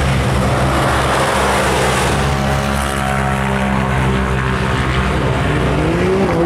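Side-by-side buggy's engine running hard as it drives along the track, a steady drone whose pitch climbs and then falls again near the end as it revs.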